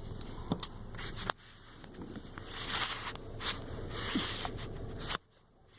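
Cabin air filter being worked out of its plastic housing: scraping and rustling of the pleated filter against the housing, with a few small clicks. It cuts off suddenly near the end.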